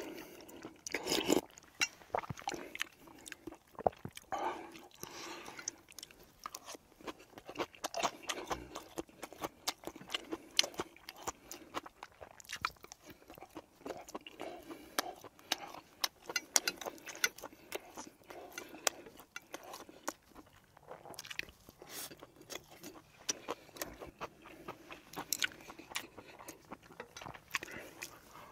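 A man eating close to the microphone: chewing and biting food with irregular crunches and quick mouth clicks throughout.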